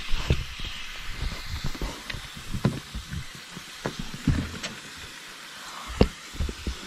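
Scattered light knocks and clicks of food being handled and set down, over a faint steady hiss of food frying on a camp stove.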